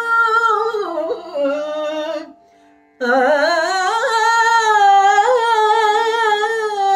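A woman singing Carnatic music solo, holding long stretched vowels with wavering gamaka ornaments; she breaks off for a breath about two seconds in and resumes a second later. A steady low drone holds underneath.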